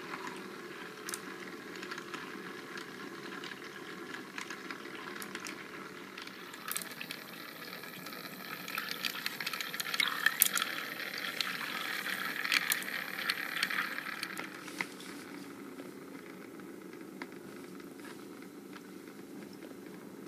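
Water swirling and bubbling in a tornado-maker toy's cylinder, over the steady hum of its small motor. The bubbling swells louder for several seconds in the middle.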